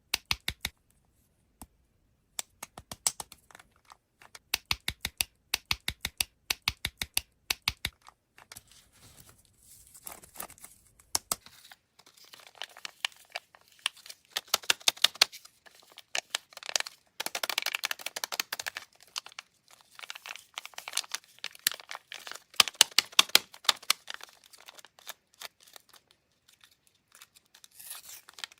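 Candy packaging being handled. Runs of quick sharp clicks or taps fill the first eight seconds. After that comes crinkling and tearing of a plastic wrapper, with more clicks, until near the end.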